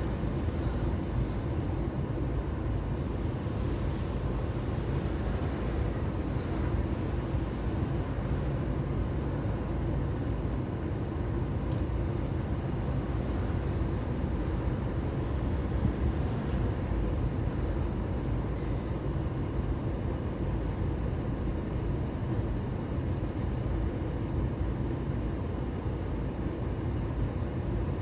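Steady low rumble of a car driving, engine and tyre noise with no sharp events.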